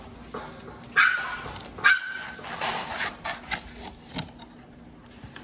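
A trading-card box and its foil packs being handled by hand, with rustling and clicks. Two short, sharp squeaks come about a second in and just before two seconds in.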